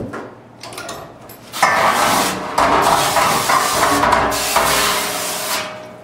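Commercial pre-rinse sprayer spraying water onto stainless steel dishwasher parts in a steel sink, starting about a second and a half in and stopping shortly before the end. Before it, a knock and some clattering of metal parts being handled.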